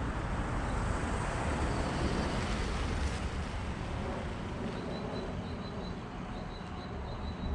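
Street ambience of traffic: a steady low rumble of vehicles, with one passing by and swelling about two to three seconds in. In the second half a small bird chirps over and over in short, high notes.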